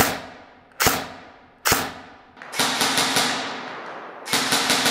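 Phylax MK18 airsoft electric rifle firing: three single shots a little under a second apart, then two short full-auto bursts. Each report trails off in a long echo.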